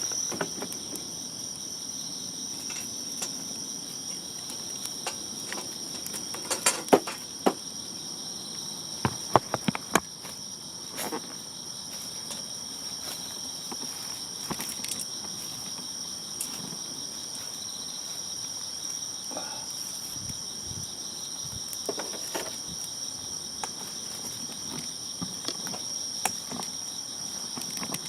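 Steady, high-pitched chirring of crickets and other insects, with a handful of sharp snaps and cracks between about six and ten seconds in, and a few more later.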